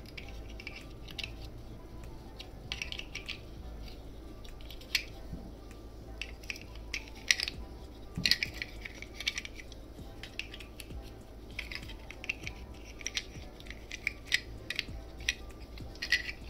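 Plastic clicks and rattles of a Super Minipla Live Boxer candy-toy model's parts being handled and folded back into place, irregular light clicks with a few sharper snaps.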